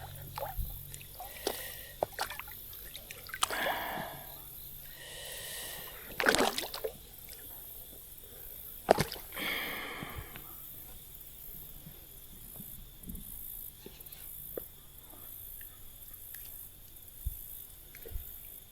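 Water sloshing and splashing in scattered short bursts as a hooked fish is fought, with faint clicks in between.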